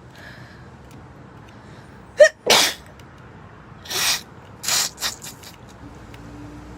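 A girl sneezing: a short voiced intake, then a loud sharp sneeze a little over two seconds in, followed by two more noisy bursts and a few short puffs of breath.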